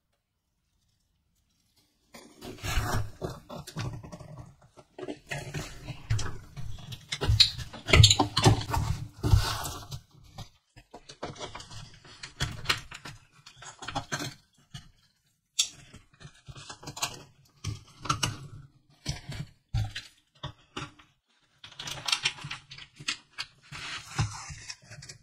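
Gloved hands handling small plastic spring clips and paper: sharp plastic clicks and snaps among glove and paper rustling, starting about two seconds in after a short silence.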